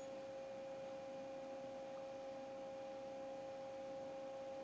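A steady hum held at a couple of fixed pitches, unchanging throughout, with nothing else standing out.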